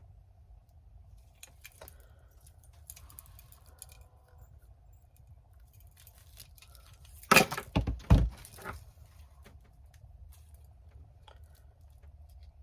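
Small metal keychain hardware and pliers clinking and rattling as they are handled, with a brief burst of louder clattering about seven seconds in.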